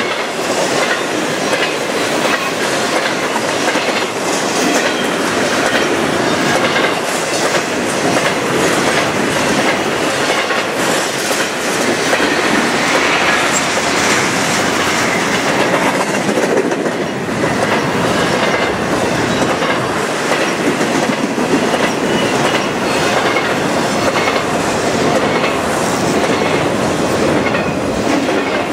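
Double-stack container well cars of a freight train rolling past close by: a steady rumble with repeated clicking of the wheels over the rail joints.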